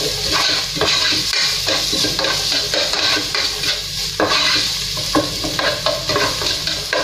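Chopped onion sizzling in hot olive oil in a pot, with a spatula stirring it and scraping and tapping against the pan again and again.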